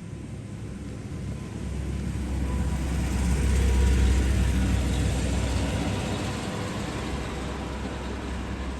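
A motor vehicle passing by: a rumble and rushing hiss that swell, peak about four seconds in, and then slowly fade.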